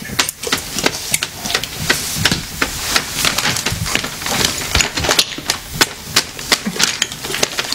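Plastic dog-treat box and wrapping handled by hand: a dense run of irregular crinkles, clicks and rustles as it is worked open.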